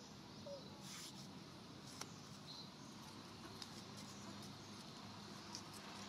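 Young macaques scuffling on stone, with faint taps and rustles over quiet outdoor ambience. There is one brief faint squeak about half a second in.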